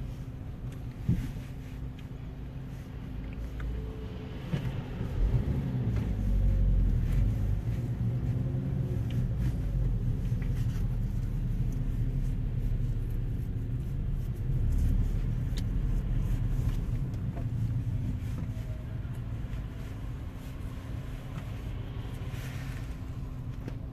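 Car cabin noise while driving in town traffic: a steady low engine and road rumble that grows louder about five seconds in as the car gets moving, with a brief knock about a second in.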